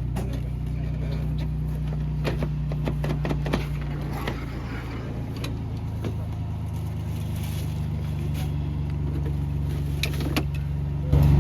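A vehicle engine idling steadily, with scattered clicks and knocks over it. Near the end the engine suddenly gets louder.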